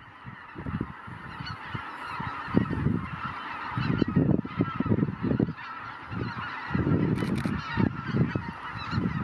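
A large flock of greater white-fronted geese calling continuously as they take off from their roost, a dense chorus of overlapping high yelping honks. Low whooshing noise swells and fades beneath it, strongest around the middle and near the end.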